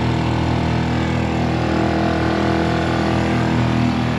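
A boat's motor running steadily while the boat is under way on the river.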